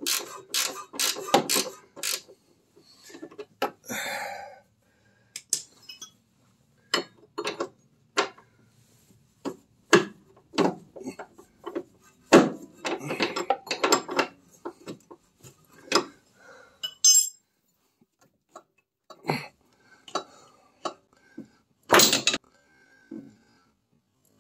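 Hand tools working the upper mounting bolt of a new rear shock absorber on a Triumph Spitfire: a ratchet clicking in a quick run at first, then scattered metallic clinks and taps of a wrench on the nut and bolt, with short pauses between.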